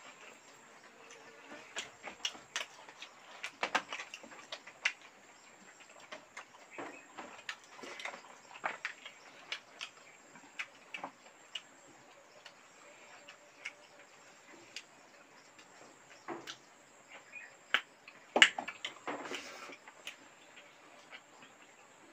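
Two people eating rice and fried fish by hand and with spoons: irregular smacks, clicks and small clinks of chewing and cutlery, the loudest about eighteen seconds in.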